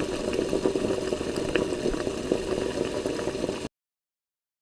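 Waterfall sound effect: steady rushing, splashing water that cuts off suddenly after about three and a half seconds.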